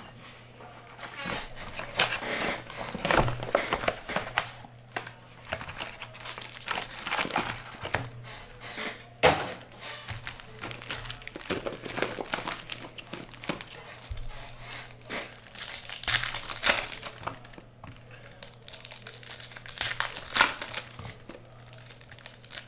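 Foil wrappers of 2017 Panini Playoff football card packs crinkling in irregular bursts as the packs are handled.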